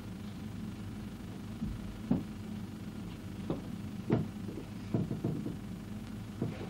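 Footsteps on a wooden floor and soft knocks as things are set down on a chair, about six dull thumps spread through, over a steady low hum.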